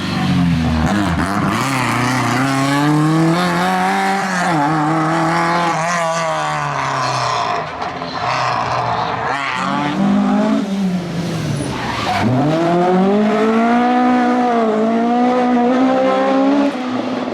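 Rally car engine driven hard, its revs climbing and dropping again and again through gear changes and lifts, with a deep drop about twelve seconds in before it pulls up again.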